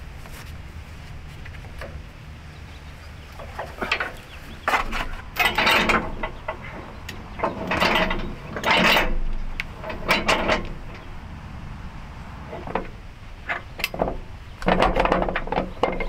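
Bursts of metal clacks and rattles as hydraulic hose couplers and hitch parts are handled at the back of a tractor, some of them ringing briefly, over a low steady rumble.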